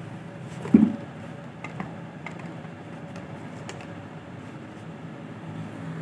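Handling of a float switch's plastic float bottles in their cardboard box: a short low thump just under a second in, then a few faint taps and clicks over steady background noise.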